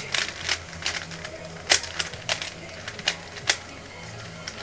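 3x3 Rubik's cube being turned fast in a speedsolve: plastic layers clicking and clacking in quick, irregular runs, with a couple of louder snaps.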